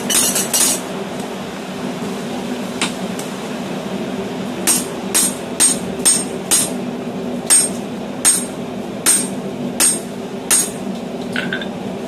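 Hand hammer striking a handled slitter driven into a red-hot hexagonal medium-carbon steel bar on the anvil, hot-slitting the eye of a hammer: sharp ringing metal-on-metal blows. Three quick strikes at the start, a single one a few seconds later, then a steady run of about ten at about two a second, over a steady low hum.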